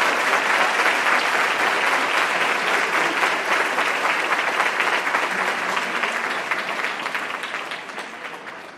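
Audience applauding: a dense, irregular clapping that fades gradually over the last few seconds.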